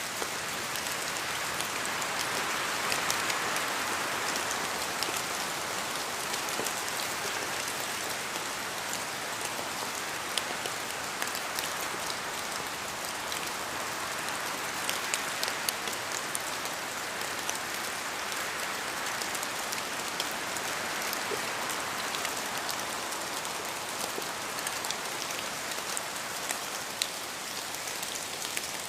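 Steady rain falling on forest foliage, a constant hiss with many sharp individual drop hits close by. The hiss swells and eases twice, a few seconds in and again past the middle, as wind gusts through the trees.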